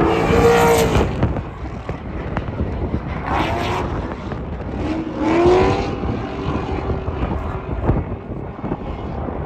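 Car engines revving in three short rising sweeps, over a heavy rumble of wind buffeting the microphone.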